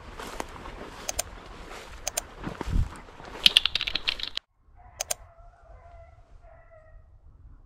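Sound effects of a like-and-comment overlay: double mouse clicks about once a second and a quick burst of keyboard typing, over rustling steps through dry grass. The sound cuts off abruptly about four and a half seconds in, leaving fainter outdoor sound with a few faint wavering calls.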